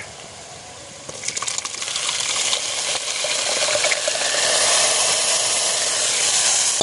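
Hot oil and frying onions in an iron kadai sizzling as liquid goat blood is poured in. The hiss starts about a second in and swells into a loud, steady sizzle.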